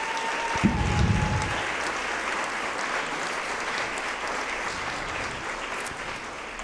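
Audience applauding, the clapping fading away near the end. A brief low thump comes about half a second in.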